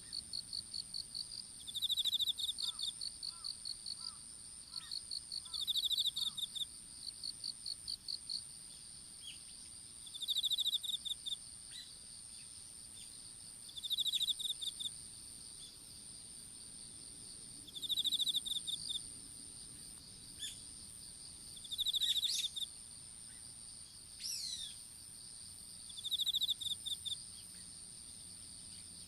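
Field insects chirping: a continuous high-pitched trill under a louder pulsed chirping trill that comes back about every four seconds. A short falling bird call comes about three-quarters of the way in.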